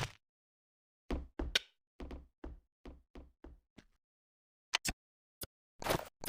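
A series of short knocks, each dying away quickly with silence between. About a second in comes a run of eight strokes that grow fainter and a little closer together, then a couple of sharp clicks and a louder cluster of knocks near the end.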